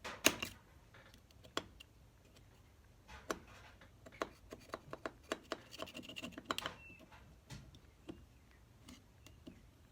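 Light clicks, taps and scrapes of small metal carburetor parts and tools being handled on a workbench, one sharp click right at the start and a run of clicks in the middle.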